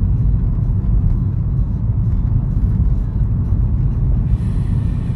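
Steady low rumble of a car's engine and road noise, heard from inside the cabin while driving. A brief hiss comes in higher up near the end.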